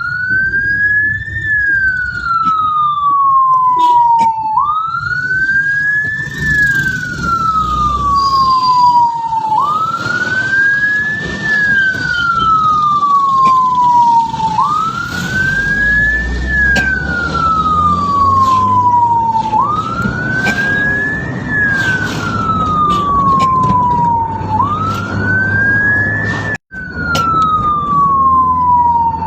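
Ambulance electronic siren on wail, each cycle climbing quickly and then sliding slowly down over about five seconds, repeating about six times over the low rumble of the moving vehicle. The sound cuts out for an instant near the end.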